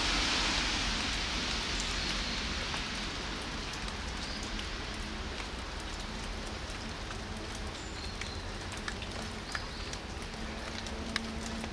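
Steady rain falling on wet pavement: an even hiss, a little louder at the start, with a few scattered sharp ticks.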